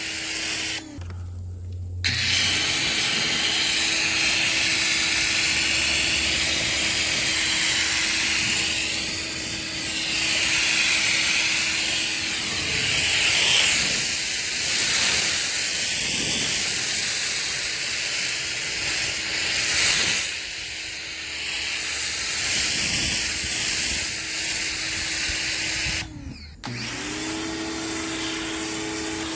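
Greenworks 1700 PSI electric pressure washer running, its motor and pump giving a steady whine under the hiss of the water jet as it sprays soapy water. The motor cuts out briefly about a second in and again near the end, then starts up again.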